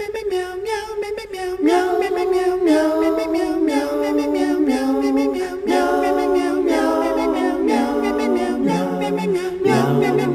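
Outro music: a cappella voices singing in harmony. A single wavering vocal line comes first, and about two seconds in several voices join on held chords that change in steps.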